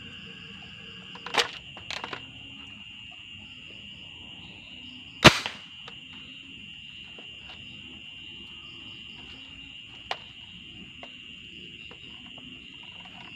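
Homemade PVC bolt-action gas gun being cocked by hand: plastic clicks from the bolt and action, a sharp loud clack about five seconds in, and a lighter click near ten seconds.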